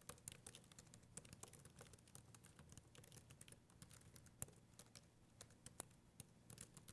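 Typing on a laptop keyboard: a quick, uneven run of faint key clicks.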